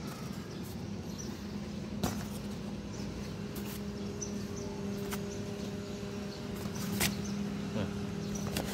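Steady low mechanical hum with a few sharp clicks and knocks; a second, higher steady tone joins the hum about halfway through.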